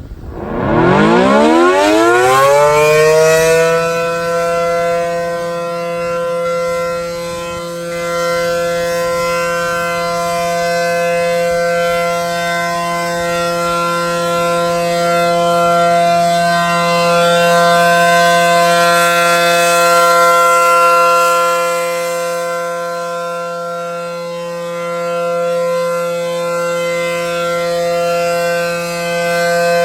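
ACA Allertor 125 outdoor warning siren winding up from a low pitch over its first few seconds, then holding a steady tone: the 'alert' signal. Its loudness swells and fades every several seconds as the siren head rotates.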